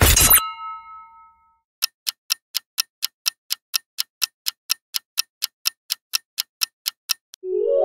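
Clock-ticking countdown sound effect, even ticks at about four a second for some five seconds. It opens with the end of a loud noisy swoosh that leaves a brief ringing tone, and a synthesizer music tone starts right at the end.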